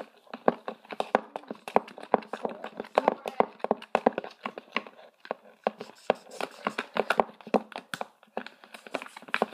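Glue and glitter being stirred in a mixing bowl, the utensil clicking and tapping against the bowl in quick, irregular strokes, several a second.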